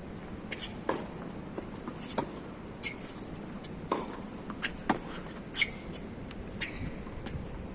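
Tennis shoes scuffing and stepping on a hard court, with scattered short knocks and clicks and a couple of brief shoe squeaks, about three seconds in and again past five seconds.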